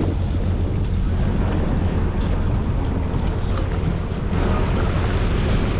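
Jet ski running under way on the water: a steady engine drone mixed with wind buffeting the microphone and the rush of water.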